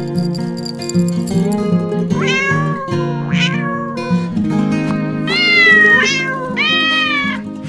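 A kitten meowing four times over strummed acoustic guitar music; the last two meows are longer.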